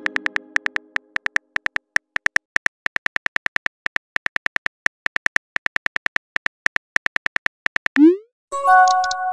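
Texting-app sound effects. A chime fades out at the start, then a steady run of keyboard tap clicks, about five a second, as a message is typed. Near the end comes a quick rising swoop, then a chime of a few steady tones as a new message arrives.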